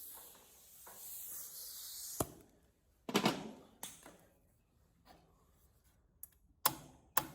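Shop work on a sheet-metal patch panel: a faint hiss for about two seconds, then a click and several sharp knocks a second or more apart, as the panel and tools are handled.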